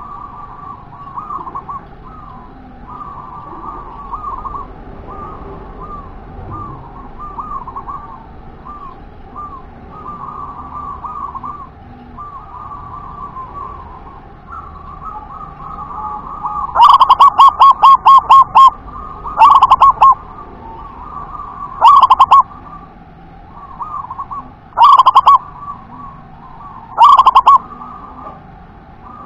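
Local zebra dove (perkutut) cooing. A soft, rapid warbling coo runs throughout. From a little past halfway, loud staccato coos come in five bouts about every two and a half seconds, the first a run of about eight quick notes and the rest shorter.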